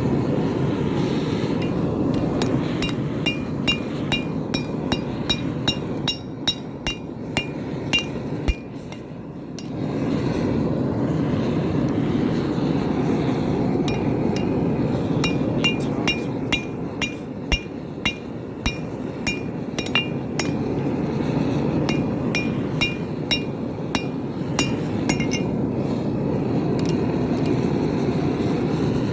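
Hammer blows ringing on an anvil, struck in quick steady runs with a pause of a few seconds midway, as hot steel is forged for a railroad knife. Under them the forge runs with a steady roar, which drops briefly around the pause.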